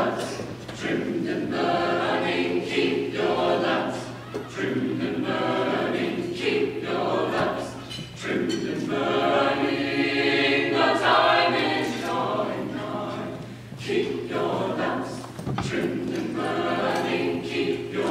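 Mixed choir of men's and women's voices singing in long phrases, with short breaks for breath between them and a steady low hum underneath.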